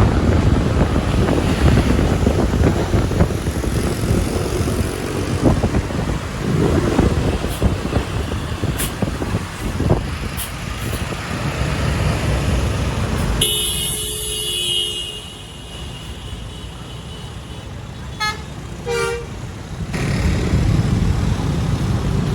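Heavy road and wind noise from moving traffic. About two-thirds of the way through, a bus's basuri 'telolet' musical horn sounds a held multi-tone note, followed shortly after by a quick run of short toots.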